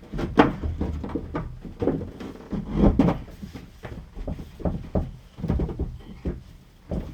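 Irregular knocks, thuds and scrapes of hands-on renovation work, with materials and tools being handled and set down; the loudest thuds come about half a second and three seconds in.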